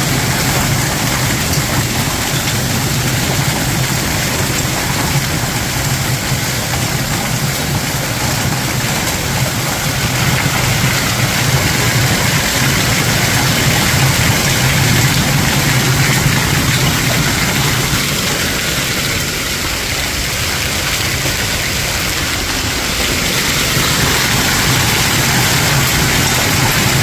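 Hailstorm pelting a concrete pool deck, patio and pool water: a dense, steady hiss of countless impacts, swelling a little about halfway through.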